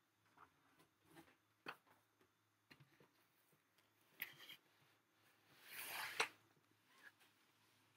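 Cardboard boxes being handled: a few light taps and knocks, then a cardboard box sliding into a cardboard sleeve with a brief scraping rush about six seconds in, ending in a sharp knock.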